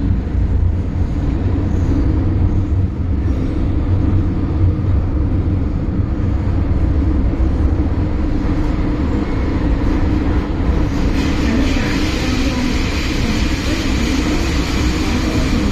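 Cabin noise inside an MTR Tsuen Wan Line M-Train electric multiple unit running through a tunnel: a steady deep rumble, with a higher hissing rush growing louder about eleven seconds in.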